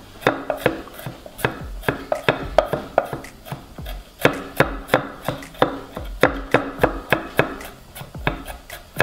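Chef's knife mincing garlic on a wooden cutting board: an irregular run of sharp knocks as the blade strikes the board, about three to four a second.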